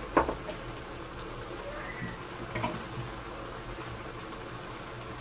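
Tomato-and-pepper sauce simmering in a frying pan on a gas hob, a steady soft bubbling. A sharp knock just after the start and a couple of fainter clicks about two and a half to three seconds in.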